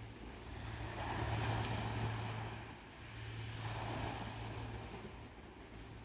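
Small sea waves washing onto the beach, two swells of surf about a second and a half and four seconds in, over a steady low hum.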